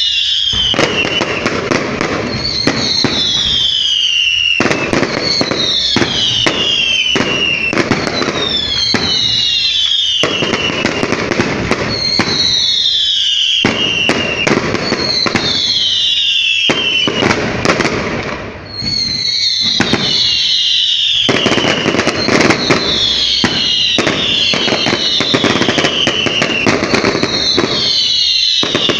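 Fireworks going off in a dense, continuous barrage of bangs and crackling, with a high falling whistle repeating about every two seconds. There is a brief lull about two-thirds of the way through.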